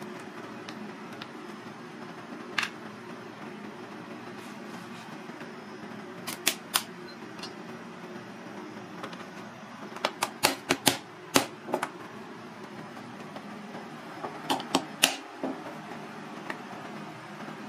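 Cooked crab shell being cracked and snapped apart by hand: sharp cracks that come in clusters, most densely about ten to twelve seconds in, over a steady low hum.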